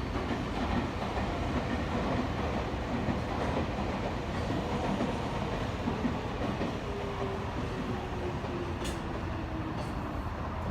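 A train running past on the line: a steady rumble of wheels on the track, with a faint whine sliding down in pitch about two-thirds of the way through.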